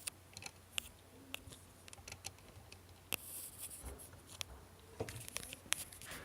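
Small handling sounds as an oscilloscope probe is put onto the circuit: scattered light clicks and taps, with a short rustle about three seconds in, over a faint steady low hum.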